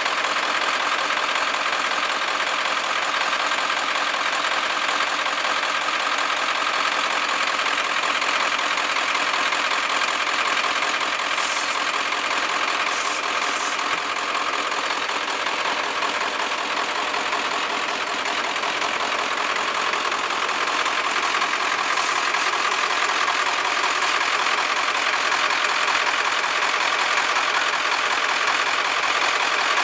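Steady drone of a vehicle engine idling, even and unbroken, with a few faint clicks.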